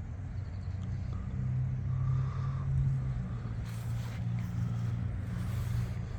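Steady low engine hum, with short bursts of hiss about four seconds in and again a little later.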